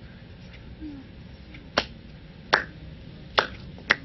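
Four sharp finger snaps, spaced a little under a second apart and coming quicker near the end, over quiet room tone.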